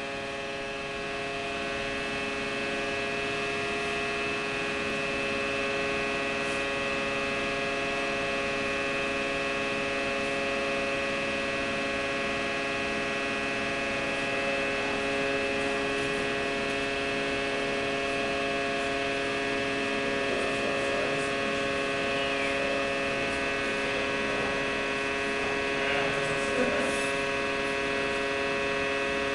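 Steady electric hum with several held tones from a hydraulic compression testing machine running as it loads a concrete column before failure.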